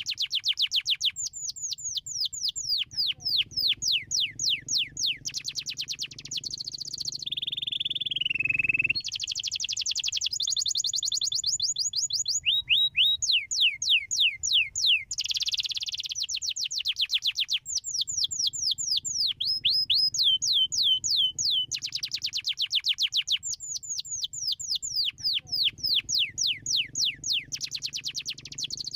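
Domestic canary singing a long rolling song: rapid trills of repeated down-sweeping notes, each run switching to a new speed and pitch, with a slower falling whistled note about seven seconds in.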